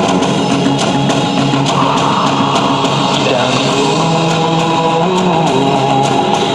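Rock music with guitars and drums played loud and steady through a car audio system's three-way front speakers.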